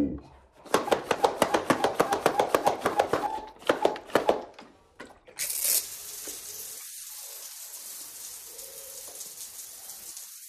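Electric toy water gun spraying: a steady, high-pitched hiss of water jetting out, starting with a short louder burst about five seconds in. Before that, a rapid, even mechanical clicking for about three seconds.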